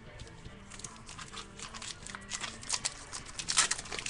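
Trading cards and a foil pack wrapper being handled: a run of quick crinkles and rustles that gets busier and louder toward the end.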